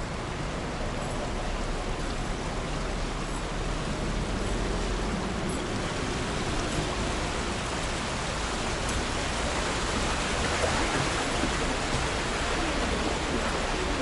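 Shallow water of the Cheonggyecheon stream rushing over its stone bed, a steady noise that grows louder about eight seconds in.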